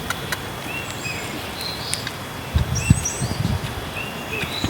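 Birds calling with short, repeated whistled chirps, with a few low thumps about two and a half to three and a half seconds in.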